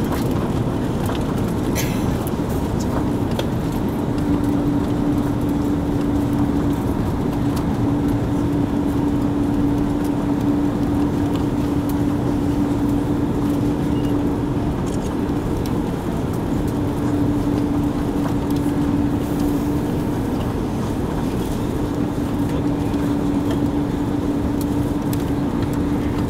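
Steady cabin noise of an Airbus A340-600 on approach: a constant rush of airflow and engine noise with a low hum that fades in and out.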